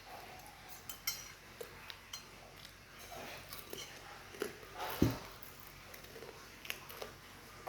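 Someone eating instant noodles: scattered short clicks of cutlery against a dish, with one louder thump about five seconds in.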